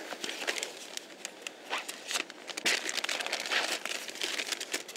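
Plastic zip-lock bag crinkling and rustling as it is handled, in short irregular crackles.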